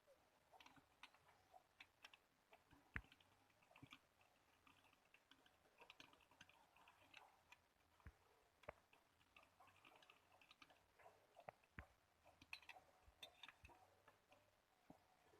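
Faint, scattered clicks and light taps, a few sharper knocks among them, typical of small parts and hand tools being handled during engine reassembly.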